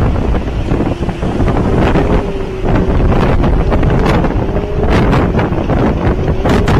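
Hurricane wind buffeting the microphone in a loud low rumble, with a faint wavering whistle and scattered sharp clicks.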